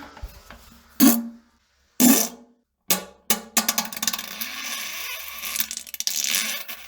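Farts: three short blasts about a second apart, then a long sputtering fart lasting about three seconds, its pitch wavering.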